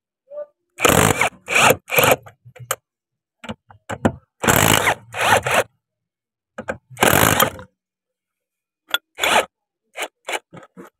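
Cordless power driver with a socket spinning out the bolts of a hydraulic tank's return-filter cover in a series of short bursts, three in quick succession, then two more and one last. Near the end, light clicks as the loosened bolts and washers are handled.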